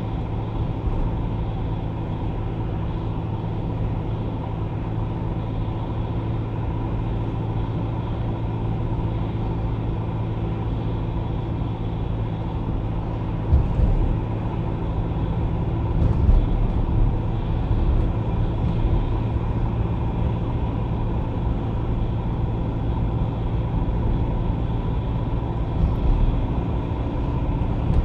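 Car driving on a city road, with a steady engine hum and tyre noise. A few short thumps stand out, about 13 seconds in, around 16 seconds and near the end.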